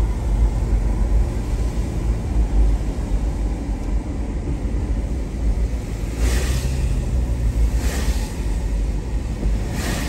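Car driving on a wet road in the rain, heard from inside the cabin: a steady low rumble of the engine and tyres, with three brief swishes in the last few seconds.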